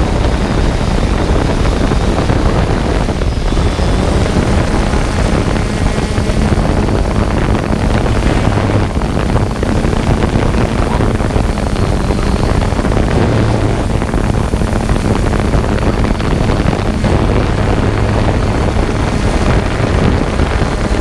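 Drone's propellers buzzing steadily and loudly in flight, with wind noise over the microphone.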